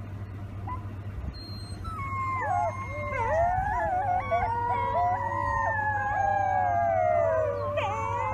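Wolf pups howling together, several high, wavering voices overlapping in a chorus that starts about two seconds in.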